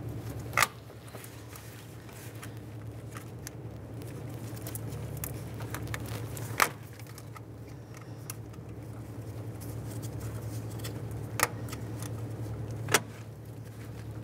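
Spring hose clamp on a coolant hose being squeezed and slid along with hose clamp pliers: light handling clicks and four sharp metallic snaps spread through, over a steady low hum.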